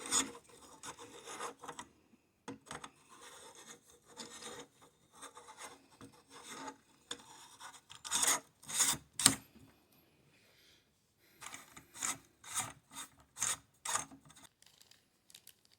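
Buffer tube being screwed into the threads of an AR-style lower receiver: a run of short scraping, rubbing strokes of metal on metal, with a brief pause about two-thirds of the way through.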